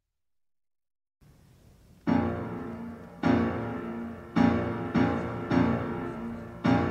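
Background piano music that starts after a second of dead silence: from about two seconds in, chords are struck about once a second, each left to ring and fade.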